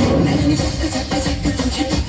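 Loud music with a steady beat and heavy bass.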